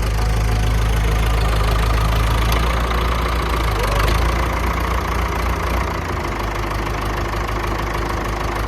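Massey Ferguson Super 90 tractor's engine idling steadily, a low rumble that eases slightly about six seconds in.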